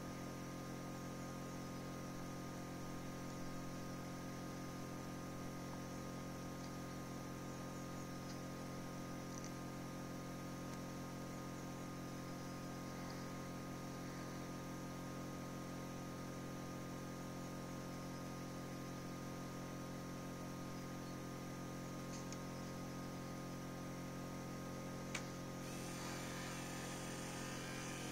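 Steady electrical hum from a running egg incubator, over faint hiss, with a single sharp click near the end.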